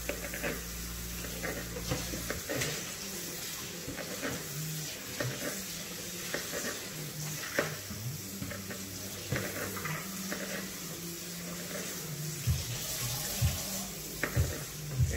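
Kitchen faucet running steadily into a stainless steel sink as potatoes are rinsed under the stream, with scattered light clicks and knocks of handling throughout.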